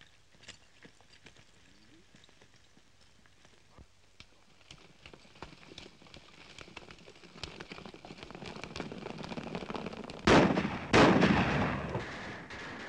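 Film soundtrack gunfire: a faint scattering of hoofbeats and shots builds over about ten seconds, then two loud bursts of gunfire come about ten and eleven seconds in, with further shots after them.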